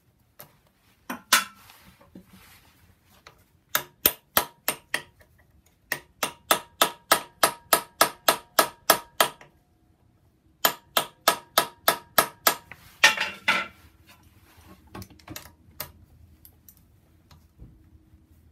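Hand ratchet wrench clicking as it is worked on a Torx T27 flange bolt: runs of sharp, even clicks at about four a second, with pauses between the runs and a brief scrape during the last run.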